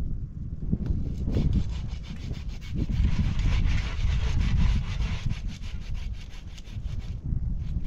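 Hand saw cutting through a tree branch in a continuous run of strokes, louder and brighter from about three to five seconds in.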